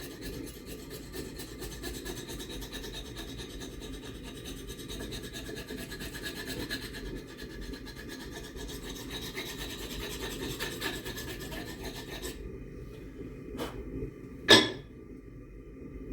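Fast, steady rasping scrape of steel being worked by hand with a file or wire brush, which stops abruptly about twelve seconds in. A couple of seconds later comes a single sharp knock, the loudest sound here.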